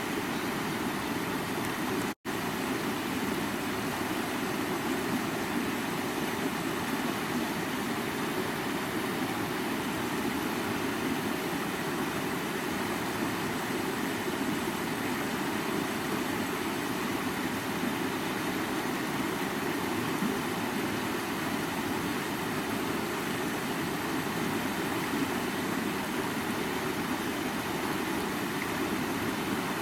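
River water flowing in a steady, even rush, with a momentary cut to silence about two seconds in.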